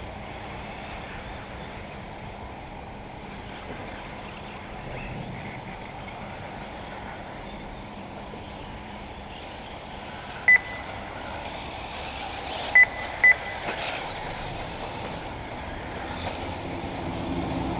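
Steady background noise of an outdoor race for electric 1/8-scale RC off-road buggies, broken by three short high beeps: one about ten seconds in, then two close together a couple of seconds later.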